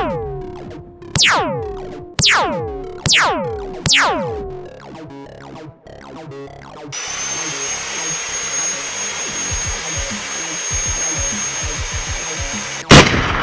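Five quick falling-pitch sound effects, about a second apart. Then, from about seven seconds in, a bandsaw runs steadily with a high whine. A loud hit cuts in near the end.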